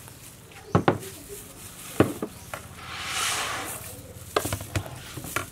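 Glass seasoning jars and a plastic mixing bowl being picked up and set down on a table: a series of sharp knocks and clinks, with a rustle lasting about a second in the middle.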